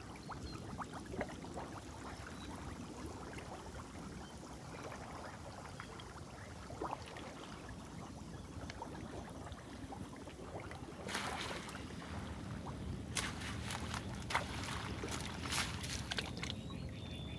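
Water sloshing and trickling around a small boat, with a run of sharp knocks starting about eleven seconds in.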